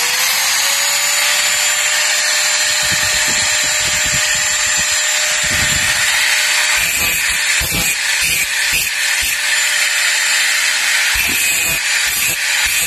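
First-generation Worx angle grinder switched on, spinning up with a rising whine and then running steadily at full speed, on a newly fitted armature bearing.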